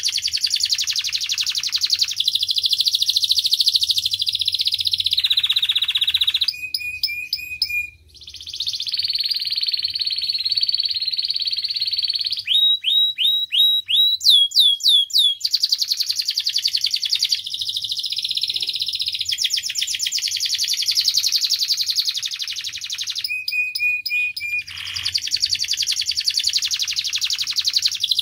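Domestic canary singing a long, unbroken song of rapid trills. It shifts three times into spells of slower, clear whistled notes repeated several times a second, near 7, 13 and 23 seconds in.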